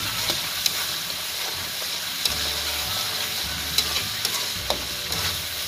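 Chili sauce sizzling and bubbling in a metal wok as a metal spatula stirs it, with a steady frying hiss and a few sharp clicks of the spatula against the wok.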